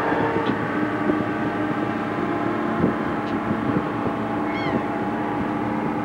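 Engines and machinery of a menhaden purse-seine fishing boat running steadily with a constant hum, and a gull calls once near the end.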